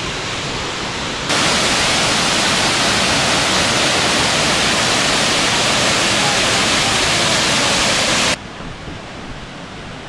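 Waterfall rushing, a steady wash of falling water. About a second in it turns abruptly much louder and brighter, and near the end it drops back just as suddenly to a softer rush.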